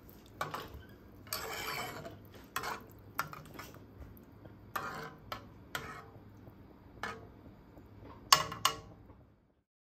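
Metal spoon stirring a pot of miso soup, scraping and clinking against the pot at irregular intervals. There is a longer scrape about a second and a half in and two sharp clinks close together near the end.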